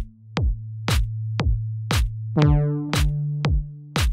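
Electronic background music with a drum-machine beat: a kick and sharp hits about twice a second over a held bass synth note, with plucked synth chords that ring and fade.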